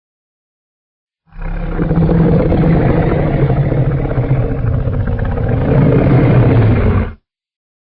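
Custom Godzilla roar sound effect: one long, loud, low roar lasting about six seconds, starting just over a second in and cutting off abruptly.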